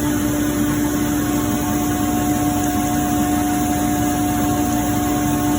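Ingersoll Rand 15 HP rotary screw air compressor running steadily, a constant machine hum with a strong steady tone.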